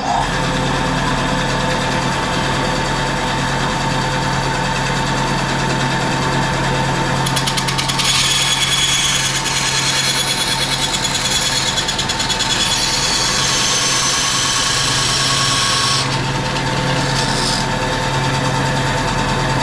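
A power tool runs steadily while cutting aluminum wing stiffeners down to length. A harsher, high-pitched cutting sound comes in about seven seconds in and drops away at about sixteen seconds, over the steady motor hum.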